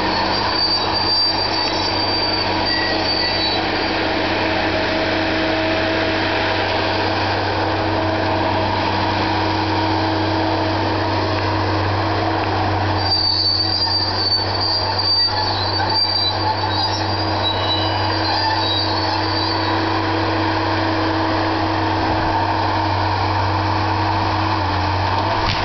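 Engine of a tracked tree-harvesting machine running steadily under load, a constant drone. A high-pitched squeal comes in twice, briefly at the start and again for several seconds about halfway through.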